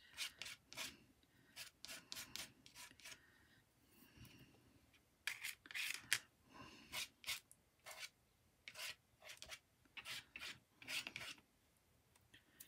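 Palette knife scraping and spreading acrylic paint across paper: a faint, irregular series of short scraping strokes, about one or two a second.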